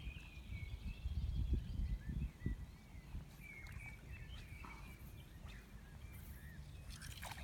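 Birds singing in short chirping phrases over a low rumble that is heaviest in the first two and a half seconds.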